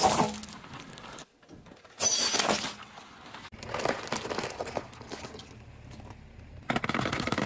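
Cracking and crunching as a car tyre rolls over and crushes brittle things, hard lollipop candy and then raw eggs, in separate short bursts with brief near-silent gaps between them.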